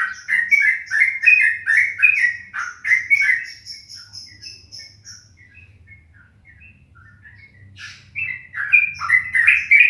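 A songbird singing a fast string of repeated chirping notes, about three a second, which thins to scattered softer notes midway and comes back loud near the end.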